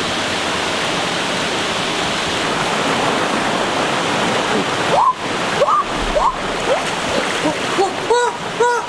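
Rushing water of a rocky forest stream. About five seconds in, a few rising whistle-like sweeps start, and near the end short pitched calls repeat about twice a second.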